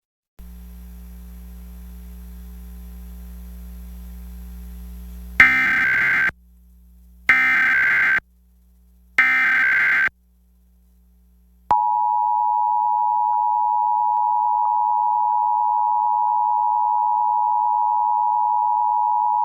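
Emergency Alert System header: a low hum, then three short bursts of digital SAME data tones about a second apart, followed by the two-tone EAS attention signal held steady for about eight seconds. It marks the start of a national periodic test alert.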